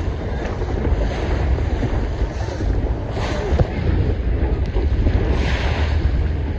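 Wind buffeting the microphone over a choppy sea, with waves splashing around a small inflatable boat in surges every second or two.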